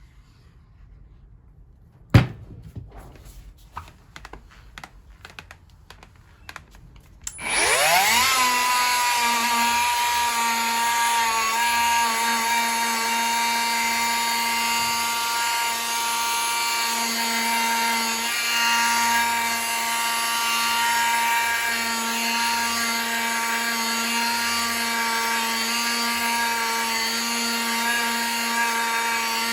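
Handheld machine polisher spinning up about seven seconds in, rising in pitch, then running steadily with its pad on the glass, buffing paint overspray off a car's rear window. A sharp knock comes about two seconds in, with a few light clicks before the motor starts.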